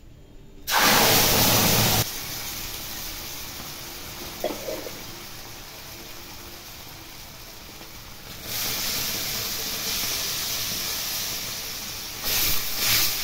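Spinach purée hitting hot oil and spices in a kadhai: a sudden loud sizzle about a second in that settles after a second or so into a steady hiss, which swells again about eight seconds in. A metal spatula scrapes the pan near the end.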